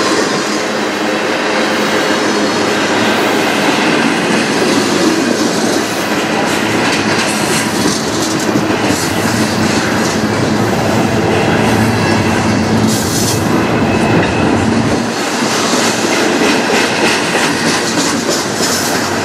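Freight cars of a passing manifest train rolling by close up. The steady rumble and clatter of steel wheels on rail carries on throughout, with clickety-clack over the rail joints.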